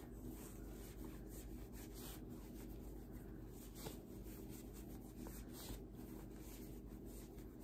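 Soft rustling and rubbing of fabric as elastic is worked by hand through a scrunchie's fabric casing.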